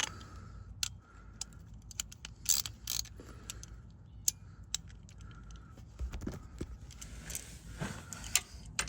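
Scattered, irregular metal clicks and scrapes of a wrench being fitted and worked against a car's oil drain plug, which is stuck and hard to break loose.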